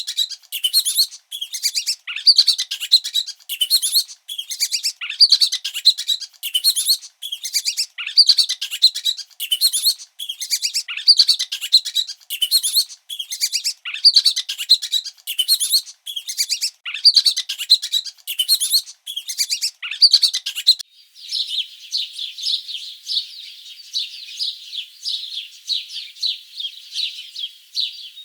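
Small birds chirping: short, high twittering phrases repeat roughly every second and a half, then about two-thirds of the way through give way to continuous, denser twittering.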